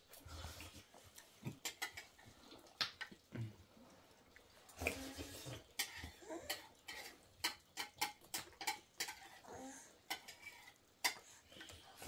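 Dishes and cutlery clinking and clattering in irregular sharp knocks, at times several in a second.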